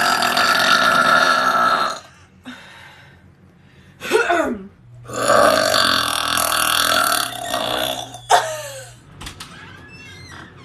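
A woman burping loudly: one long burp of about two seconds at the start, then a longer one of about three seconds from about five seconds in, with short falling sounds before and after it.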